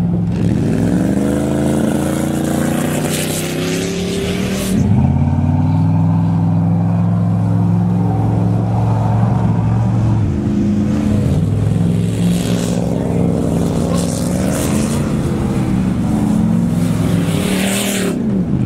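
Pickup truck's engine revving up and falling back again and again as it spins donuts in the beach sand, with gusts of hiss in between.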